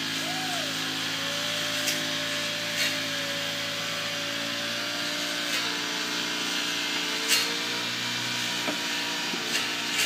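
Electric reach truck's hydraulic pump motor running with a steady whine as the reach carriage retracts, drawing the battery back into the truck body. The whine steps down in pitch about halfway through, with a few sharp ticks along the way.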